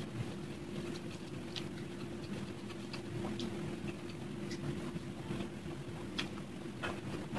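Soft, scattered clicks and crackles of deep-fried luchi being torn by hand and wiped through potato curry, over a steady low hum.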